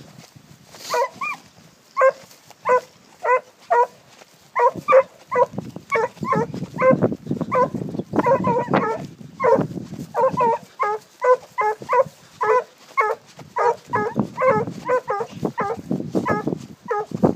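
Porcelaine scent hounds giving tongue while working a wild boar's trail: a long run of short, pitched bays at about two a second, beginning about a second in, with two voices overlapping at times.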